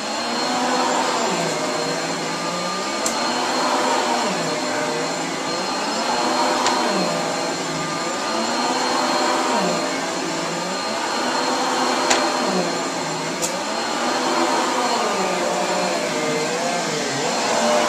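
Vacuum cleaner running steadily, its motor pitch dipping and recovering about every two seconds, with a few light clicks.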